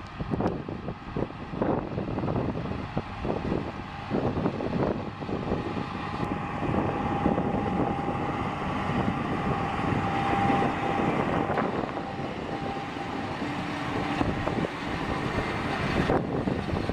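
John Deere 568 round baler and its tractor running: a steady mechanical din with uneven clatter and a faint whine through the middle, with wind on the microphone.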